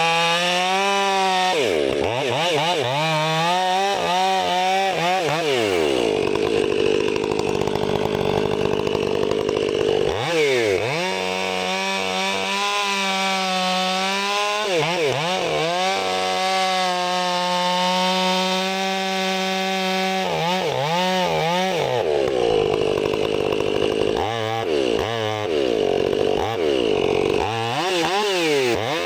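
Two-stroke chainsaw cutting firewood logs at full throttle, with the engine dropping off and revving back up several times between cuts.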